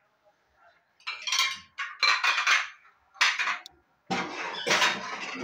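Dishes and cutlery clattering and clinking as they are taken out of a dishwasher and put away, in several bursts, the longest near the end.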